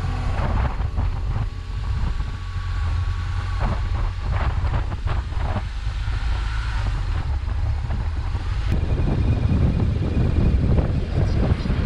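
Wind buffeting the microphone of a BMW R1200RT motorcycle on the move, with the bike's running and road noise under it; it grows louder in the last few seconds.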